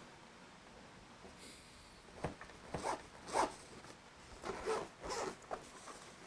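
Several short scraping, rustling strokes from handling the microphone kit's packaging and case, spread from about a second in to near the end.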